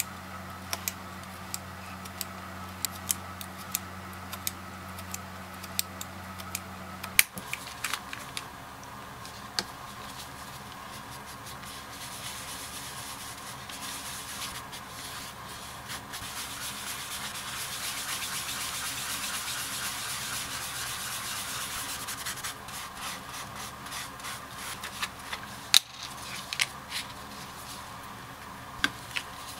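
A sponge rubbing back and forth over a leather panel, a steady scrubbing that is loudest in the middle. Before it, for the first seven seconds or so, sharp light clicks from trimming the leather over a low steady hum, which cuts off suddenly. Scattered taps and ticks follow near the end.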